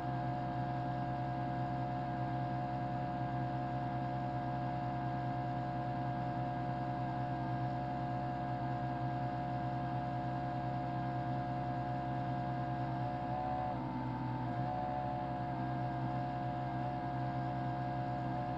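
32-line mechanical television running: a steady motor hum made of several held tones, which wavers briefly about thirteen seconds in before settling again.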